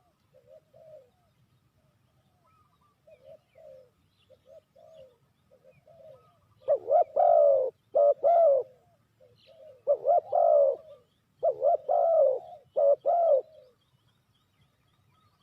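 Spotted dove cooing: soft coos at first, then from about seven seconds in a run of loud, repeated cooing phrases that stop about two seconds before the end.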